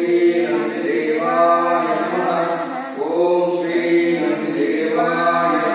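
Devotional Hindu chanting of a hymn, the voices held in long melodic phrases of a second or two each.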